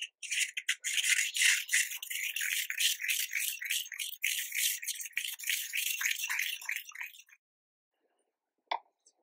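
Roasted sesame seeds being ground with a wooden pestle in a ridged ceramic mortar (suribachi): a rapid, gritty scraping and crackling of seeds against the combed ridges, which stops about seven seconds in. Near the end there is one short tap.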